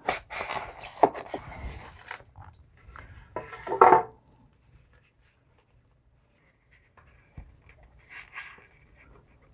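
Tape on a foam packing block being cut and peeled, with foam scraping and rubbing as the block is pulled open; loudest just before four seconds in. After that it is mostly quiet, with a few faint handling sounds near the end.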